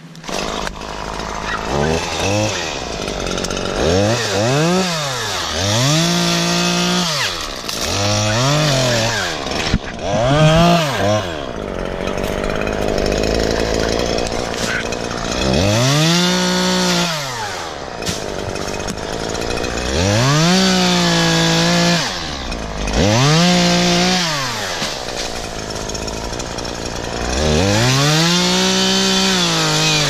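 Stihl MS 150 T top-handle two-stroke chainsaw running and cutting into the crown of a coconut palm. It is revved up and dropped back about nine times, its pitch climbing and falling with each burst of throttle, and it settles to lower running in between.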